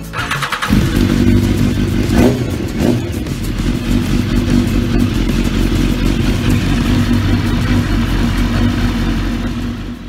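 BMW S 1000 RR's inline-four engine started on the starter button: a brief crank, it catches within the first second and settles into a steady idle.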